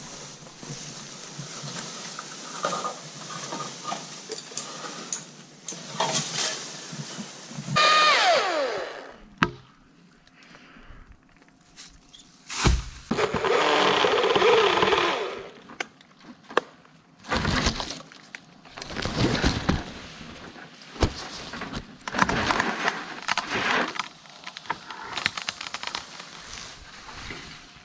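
Wood cracking and breaking in a series of separate bursts during tree work, the loudest about eight and thirteen seconds in, with quieter gaps between.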